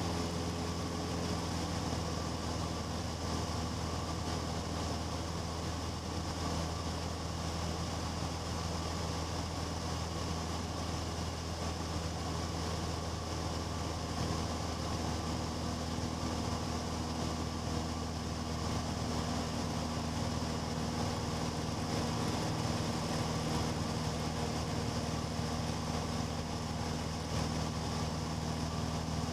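Cessna 150's four-cylinder Continental O-200 piston engine and propeller running steadily, an even, unbroken drone with a slight shift in tone about halfway through.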